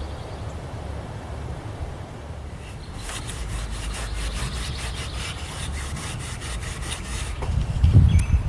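Hand rubbing strokes on wood, about three a second, taking old paint off a wooden chair part, over a low rumble; a few heavier bumps near the end.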